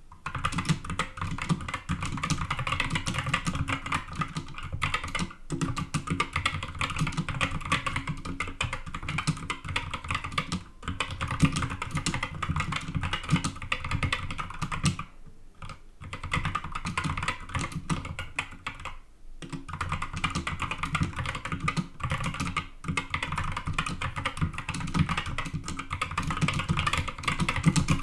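Fast continuous typing on a Skyloong SK61 60% keyboard with stock Gateron Optical Red linear switches, a dense stream of key clacks broken by a few short pauses.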